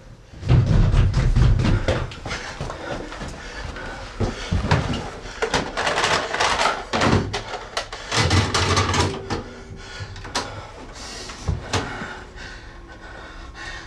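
Handling noise: a string of clicks and knocks of plastic and wood, with dull thumps, as a person fumbles with a white videotape case and presses against a wooden cabinet holding a tape deck.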